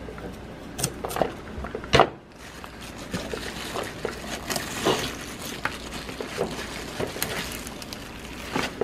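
Small kitchen knife cutting through crisp kohlrabi leaf stems and knocking on a plastic cutting board, in sharp clicks, the loudest about two seconds in. After that come softer scattered clicks and crackles as the cut stems are handled on the board.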